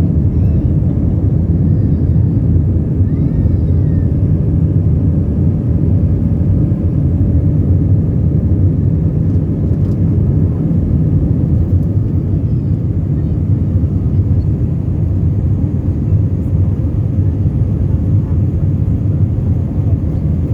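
Airbus A320 airliner's jet engines running as a steady low rumble, with a faint steady tone above it.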